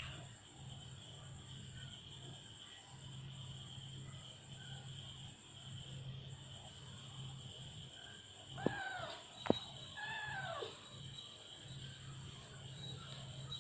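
A cat meowing twice: two falling meows about a second apart, with two sharp clicks around the first. A steady high chirring of insects runs underneath.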